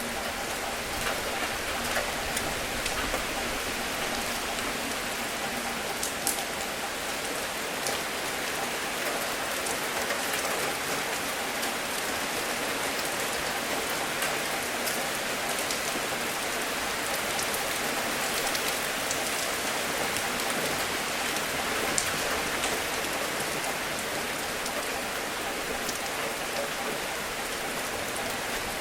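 Steady rain falling, with individual drops ticking now and then.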